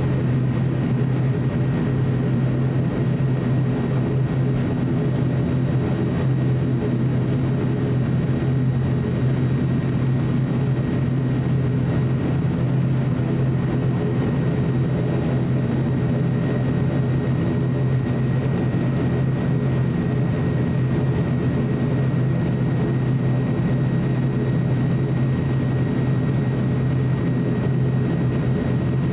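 Cabin sound of an ATR 42-600 turboprop airliner taxiing, its twin Pratt & Whitney PW127 turboprop engines and propellers making a steady low drone with a thin high whine over it.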